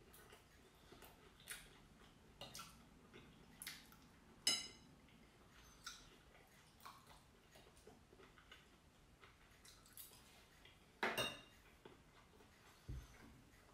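Knife and fork clinking and scraping on a plate, in scattered light clicks. There is one bright, ringing clink about four and a half seconds in and a louder clatter near eleven seconds.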